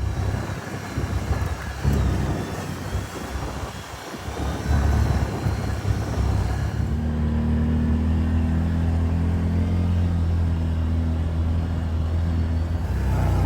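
Off-road vehicle engine running, with rushing noise for the first several seconds, then a steady low drone from about seven seconds in.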